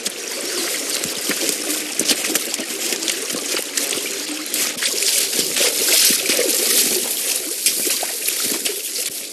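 Running water, trickling and splashing steadily with many fine crackling ticks, like a small stream.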